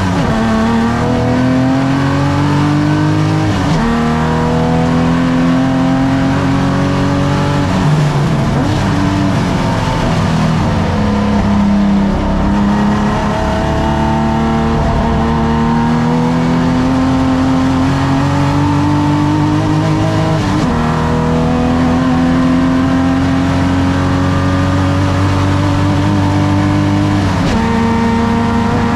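Classic saloon race car's engine at racing speed, its pitch climbing under full throttle and snapping down at each upshift, about four seconds in, about two-thirds of the way through and again near the end. In between it falls away as the car slows for a corner, then builds again.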